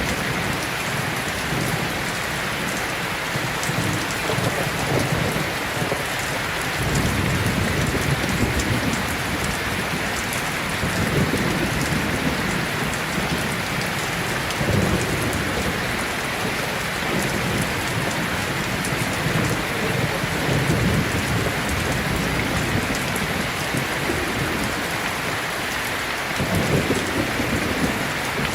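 Steady, heavy rain falling outside a window, with deep rumbles swelling up and dying away every few seconds underneath.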